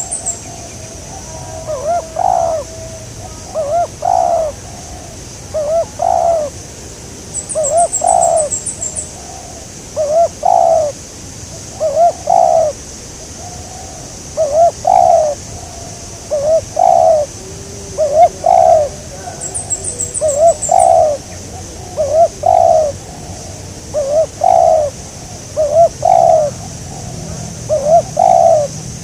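Spotted dove (tekukur) cooing over and over, its low rolling coos coming roughly one every second or two. Brief rapid bursts of high chirping break in three times.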